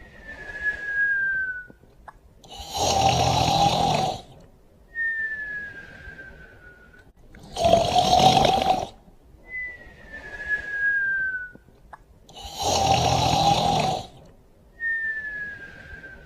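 A sleeper snoring and whistling in a slow, regular cycle: three rough snores, each followed by a thin whistle that slides slightly down in pitch, the pattern repeating about every five seconds.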